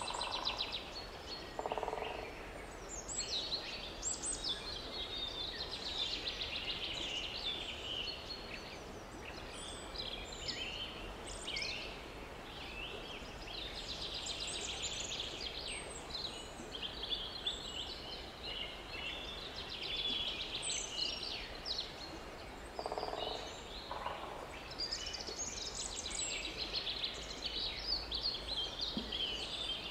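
Several songbirds singing over one another in a continuous forest chorus of high chirps and trills. A few short, lower-pitched calls come twice in pairs, near the start and about two thirds of the way through.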